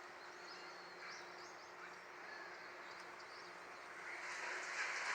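Small birds chirping over a faint steady hum, with a broad rushing noise that swells from about four seconds in.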